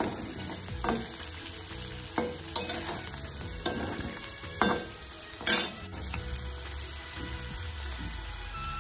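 Food sizzling as it fries in a pan, stirred with a spatula that knocks and scrapes against the pan about six times. The loudest knock comes about five and a half seconds in.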